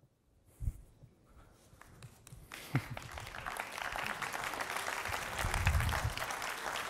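A short low thump, then an audience applauding, the clapping swelling from about two and a half seconds in and holding steady.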